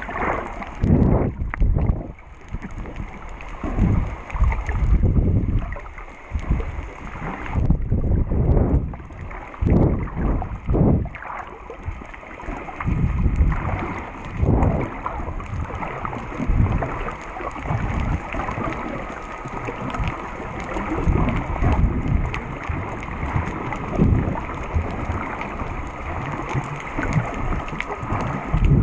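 Muffled underwater water noise heard through a GoPro's waterproof housing: low rushing and sloshing that swells and fades in irregular surges, with occasional knocks.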